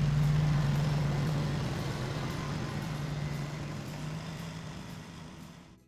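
International Harvester 300 utility tractor's engine running at a steady speed while the backhoe is worked, a low steady hum that fades away toward the end.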